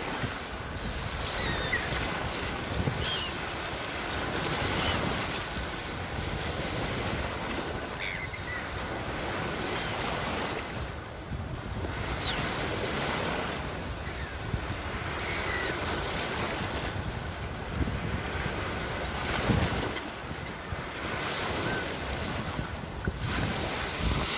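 Sea waves washing ashore: a steady rushing wash that swells and eases every few seconds.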